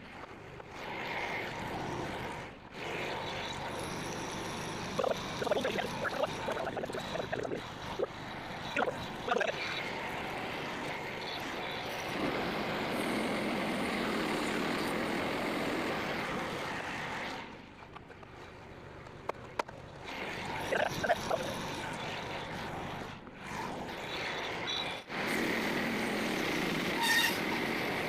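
Frontier OS27 portable bandsaw mill running, its engine under load as the blade cuts through white oak for shingles. There are clusters of sharp knocks and rattles about a third of the way in and again about three-quarters through, and the noise drops briefly several times.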